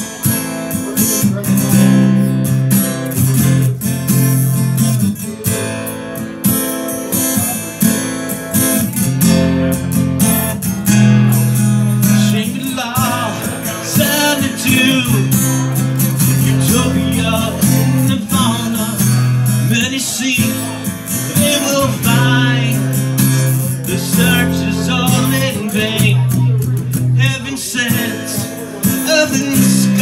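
Acoustic guitar strummed in a steady rhythm, with a man's singing joining in about twelve seconds in and carrying on over the guitar.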